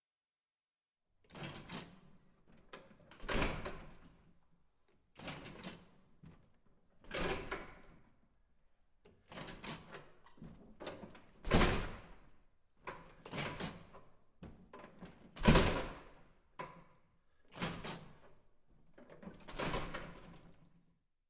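A series of push-bar (panic exit) door sounds: the bar is pressed with a latch clack and the door thuds shut, about a dozen separate clacks and bangs a second or two apart, with two heavy thuds the loudest among them.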